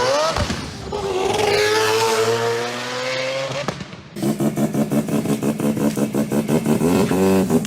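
Rotary engine revving: the pitch climbs, drops sharply as revs fall and climbs again. After a cut, a rotary engine running with sharp regular pops about four a second, its revs rising near the end.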